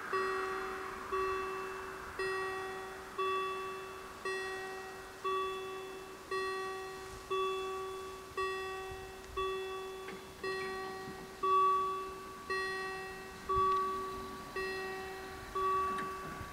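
Level crossing warning bell striking about once a second, each strike ringing out and fading before the next, sounding as the crossing closes for an approaching train.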